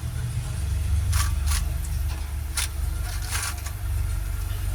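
Short crisp rustles and crinkles of small plastic packaging being handled as a new USB Type-C charging connector is taken out, over a steady low rumble.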